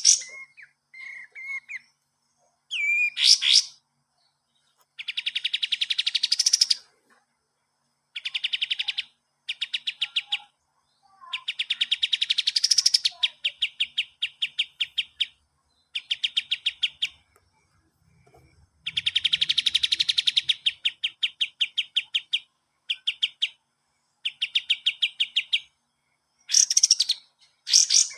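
Kapas tembak songbird singing in repeated bouts of rapid, rattling trills, each one to three seconds long, with a few short sweeping whistled notes near the beginning and end.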